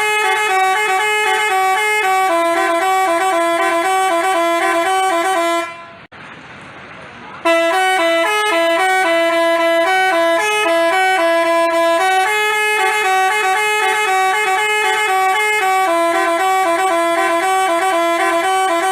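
Basuri telolet bus horn, a multi-tone musical horn, playing a quick stepping melody with two notes often sounding together. It breaks off about six seconds in and starts again about a second and a half later.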